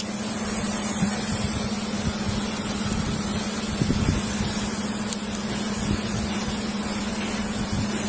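Steady background noise at a roadside traffic stop, picked up by a body camera's microphone: a constant low hum with a hiss over it.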